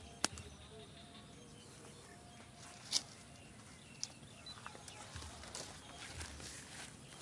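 Quiet open-air ambience with scattered small clicks and rustles: a sharp click just after the start, a louder rustle about three seconds in, and more light clicks near the end.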